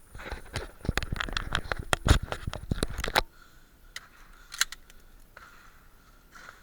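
Rattling, scraping clatter: a dense run of sharp clicks for about three seconds that stops suddenly, followed by a few faint clicks.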